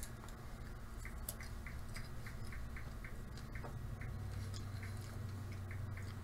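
Quiet room tone: a low steady hum with a faint, even ticking, about three ticks a second.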